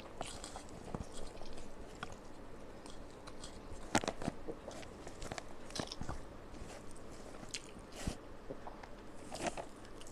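Close-up eating sounds of someone chewing rice with potato and pointed-gourd curry: wet chewing with irregular sharp smacks and clicks, the loudest about four seconds in.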